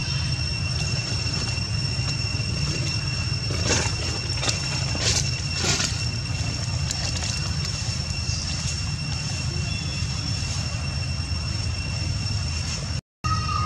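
Steady low rumble with a thin, steady high whine over it, and a few brief rustles or clicks about four to six seconds in. The sound cuts out for a moment near the end.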